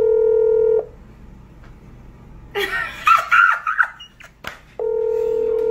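Outgoing call ringback tone of an unanswered video call: a steady beep-tone that ends about a second in and sounds again near the end, two seconds on and about four off, while the called person has not picked up. In the gap, a brief burst of women's voices.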